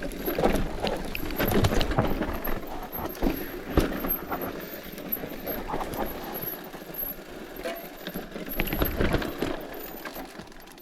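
Bicycle rattling and knocking over rough, uneven ground, with irregular clatters and bangs.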